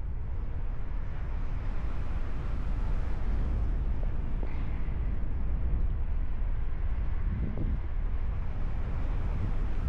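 Steady wind rushing over the microphone during a paragliding flight, a deep even rush of airflow.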